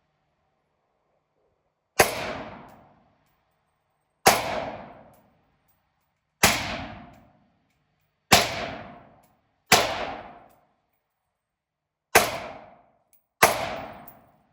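Seven single gunshots, one every one to two and a half seconds, each a sharp crack followed by about a second of ringing echo.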